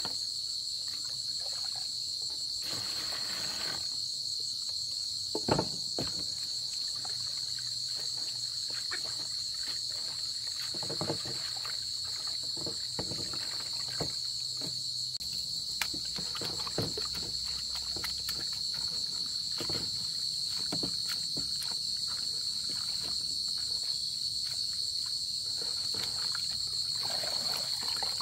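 Steady high-pitched insect chorus, crickets or cicadas chirring without a break, with scattered light knocks and clicks and one louder knock about five seconds in.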